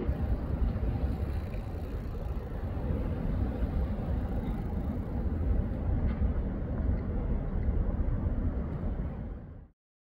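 Street traffic noise: a steady rumble of passing vehicles that fades out about nine and a half seconds in.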